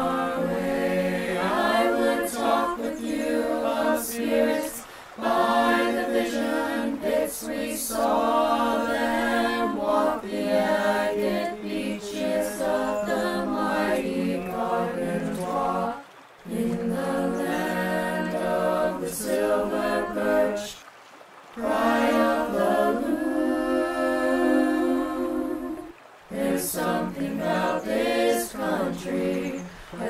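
Choir singing a cappella, voices in harmony, in phrases separated by short breaths about every five seconds.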